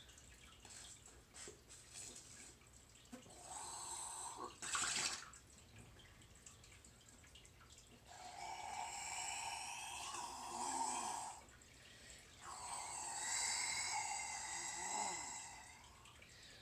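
Breath blown through a straw into a blob of water slime to inflate a bubble: three long breathy blows of a few seconds each, starting about three, eight and twelve seconds in.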